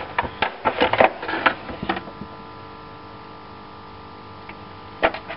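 Clicks and knocks of a plastic Bosch bit case being unlatched and opened, its bits rattling, over the first two seconds. A steady hum follows, with one sharp click about five seconds in.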